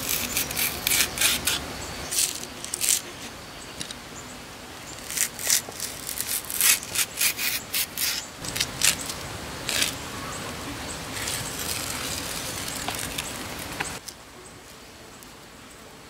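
A knife scraping and peeling the skin off a fibrous green plant stalk: a quick, irregular run of crisp scrapes and snapping clicks, with strips of fibre torn off. The sound drops to a quiet background about 14 seconds in.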